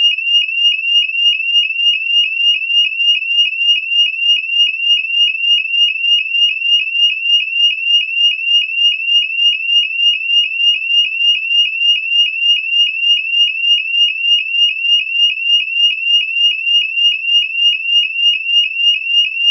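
Electronic fire alarm sounder sounding one of its alarm tones: a loud, high tone pulsing rapidly, about three times a second, each pulse dipping slightly in pitch.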